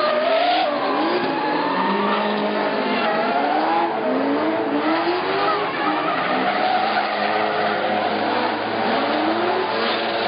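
Drift cars sliding sideways through a corner with tyres squealing, their engines revving up and down over and over.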